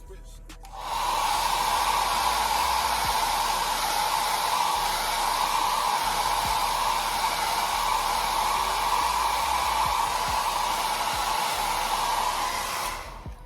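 Handheld hair dryer switched on about a second in, blowing steadily, then switched off shortly before the end. It is drying the wig-adhesive spray along the lace by the ear.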